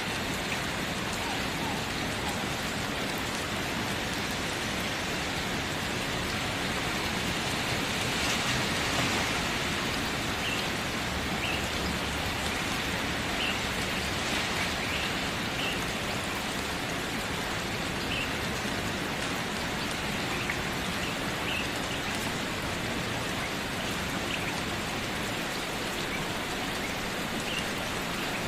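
Steady rain falling, an even hiss of drops that swells slightly about eight seconds in.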